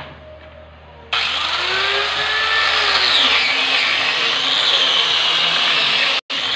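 Electric sander switched on about a second in and run over a wooden tabletop, a steady loud rush of sanding with a motor whine that wavers up and down in pitch. It breaks off abruptly near the end.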